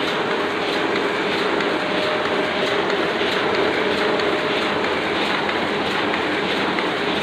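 Oliver 6 printing press running at a steady pace: continuous mechanical clatter with regular ticks, the sound of the press running normally.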